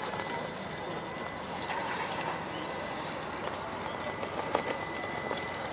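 RC rock crawler climbing a rock face: scattered clicks and knocks of its tyres and chassis on the rock over a steady hiss.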